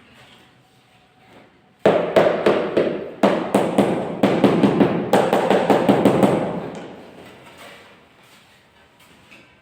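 A rapid run of sharp knocks, several a second, starting suddenly about two seconds in and fading out over the last few seconds.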